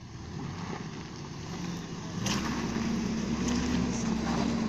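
Suzuki Jimny's engine pulling under load as the small 4x4 climbs a steep rock step. About two seconds in the engine note rises in pitch and gets louder, then holds steady.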